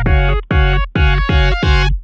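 Electronic background music: pulsing synthesizer chords on a steady fast beat.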